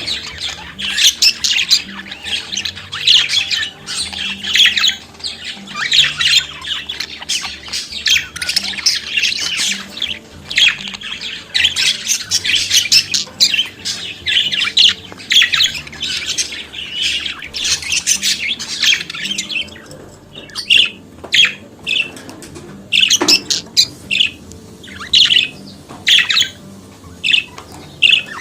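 Budgerigar warbling and chattering in a fast, dense stream of high chirps and squawks, breaking up after about 20 s into separate short calls and chirps.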